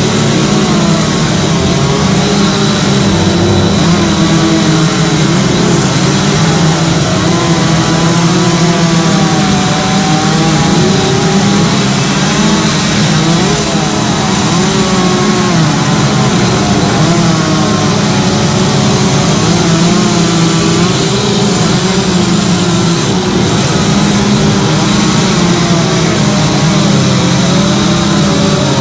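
Chainsaws running and cutting wood, their engine pitch wavering up and down over a steady loud drone, with more than one saw going at once.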